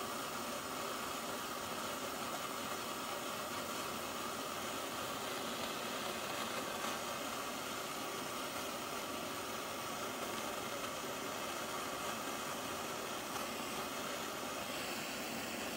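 Gas torch flame hissing steadily as it heats a crucible, melting sterling silver and brass together into hard silver solder.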